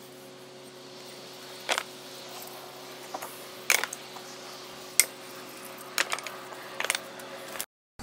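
Workshop handling sounds: about six sharp clicks and knocks, spaced unevenly, over a steady low electrical hum. The sound cuts off abruptly near the end.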